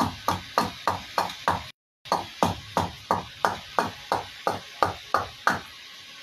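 Hatchet chopping into a wooden kuksa blank held on a chopping stump: quick, even strikes about three a second, roughing out the cup. The sound drops out briefly just before two seconds in, and the chopping stops about five and a half seconds in.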